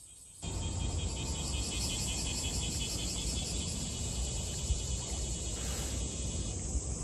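Insects calling in a fast, even pulsing trill that stops near the end, over a steady low rumble of outdoor background noise.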